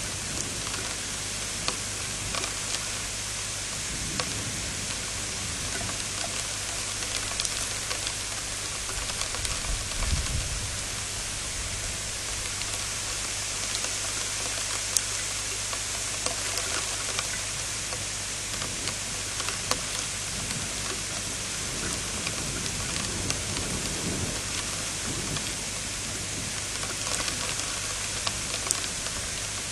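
Steady heavy rain hissing down, with scattered drop ticks, over a steady low hum. A few brief low rumbles come through, the strongest about ten seconds in.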